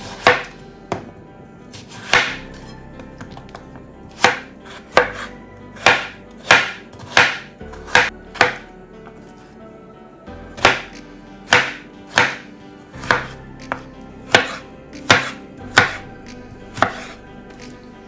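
Chef's knife cutting through a cucumber and striking a bamboo cutting board: about eighteen separate chops in two runs, with a pause of about two seconds in the middle.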